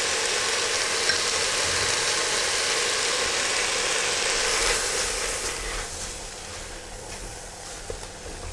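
Chunks of carrot, onion and celeriac sizzling in olive oil in a hot cocotte as flour is stirred in over them. The sizzle is loud and steady, then grows softer about five seconds in.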